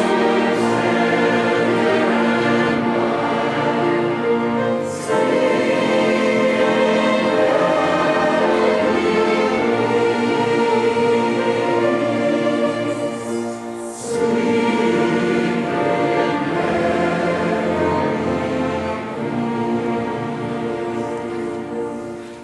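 Choir singing held chords with instrumental accompaniment, in phrases with short breaks between them. The music dies away near the end.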